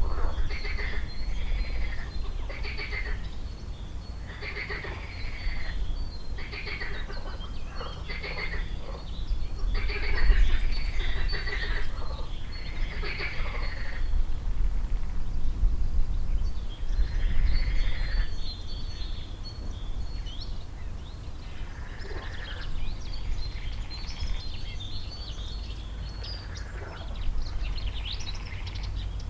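Pond frogs croaking in a chorus, with calls about once a second that thin out about halfway through, over a steady low rumble.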